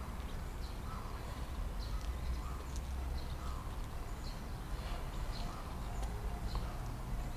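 Pickup dump bed being lowered on its electric-hydraulic tipper, with a steady low hum from the hydraulic system and a faint chirp repeating about once a second.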